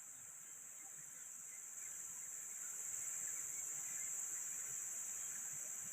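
Insects, crickets or cicadas, singing in a steady high-pitched chorus that grows a little louder about two seconds in.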